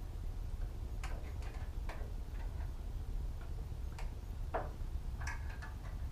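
Scattered light clicks and taps, about seven over six seconds, as a stiff urethane bandsaw tire is handled in a metal pan of hot soapy water. A low steady hum runs underneath.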